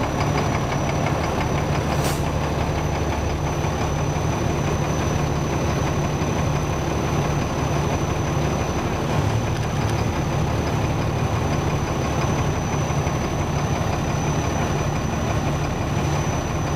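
Fire engine's diesel engine idling with a steady low rumble as the truck creeps slowly forward.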